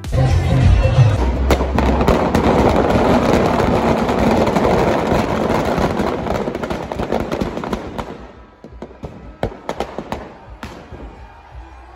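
Firecrackers packed inside a burning Ravan effigy going off in a loud, dense crackle, thinning after about eight seconds to scattered separate pops.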